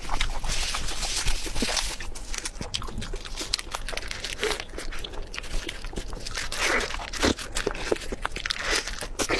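Close-miked eating of spicy pork belly: chewing and biting, a dense, irregular run of short clicks and brief noisy mouth sounds.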